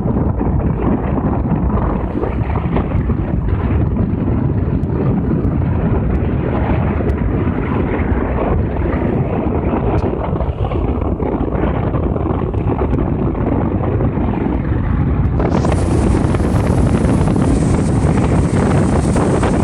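Wind buffeting the microphone: a loud, steady rumble that turns brighter and hissier about three-quarters of the way through.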